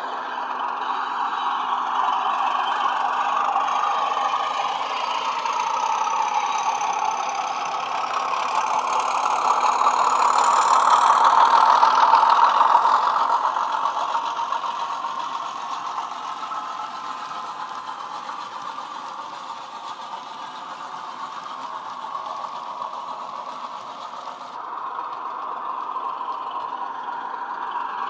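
Diesel engine sound of a Bachmann Class 31 model locomotive, played by its DCC sound decoder through upgraded speakers. The engine runs steadily, growing louder to a peak about twelve seconds in as the train passes, then easing off.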